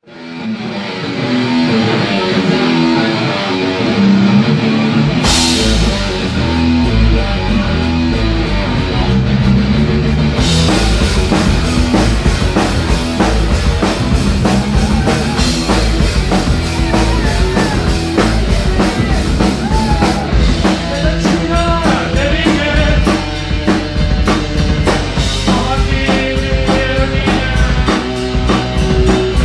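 Rock band playing the opening of a song: a pitched intro with no bass or drums, then bass and drums come in with a cymbal crash about five seconds in, and the full band drives on with a steady beat from about ten seconds. A gliding melody line rises above the band from about two-thirds of the way through.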